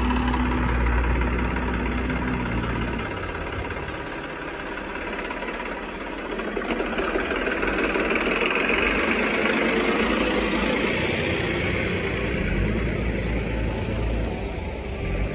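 Heavy diesel machine engine running. Its low note drops away for several seconds and returns near the end, with a broad rushing noise in between.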